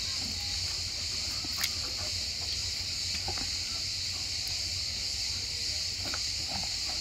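A steady, high-pitched insect chorus drones without a break, with a few faint clicks and taps over it.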